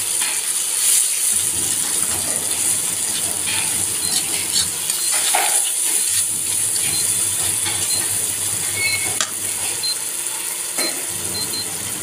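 Onion-and-spice masala, wet with a little added water, sizzling steadily in hot oil in a kadhai while it roasts, with scattered scrapes and clicks of a metal spatula stirring it.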